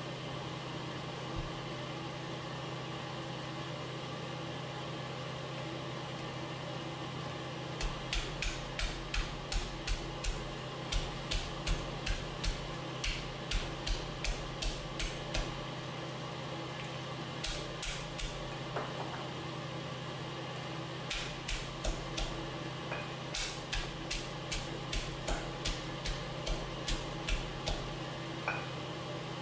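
Stone pestle pounding lemongrass and garlic in a stone mortar: sharp thuds at about two to three a second, in three runs with short pauses, starting about a quarter of the way in. A steady hum runs underneath throughout.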